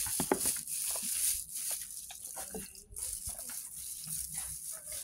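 Scattered small splashes and drips of water with light knocks, as wet kittens are rinsed in a perforated plastic basket with a plastic dipper.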